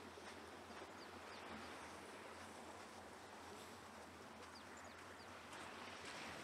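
Quiet seaside ambience: a soft, even hiss of wind and distant surf, with a few faint, high bird chirps.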